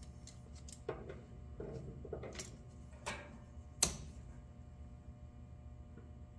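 Metal pliers clicking and knocking against a stuck oil filter and the parts around it as they are worked into position. There are a few separate sharp clicks, the loudest about four seconds in, over a low steady hum.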